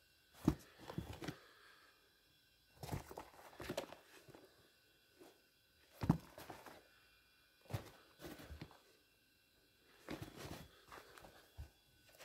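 Sneakers being handled and moved about on a carpeted floor: clusters of soft knocks, thuds and rustles every second or two, the sharpest about half a second in and again about six seconds in.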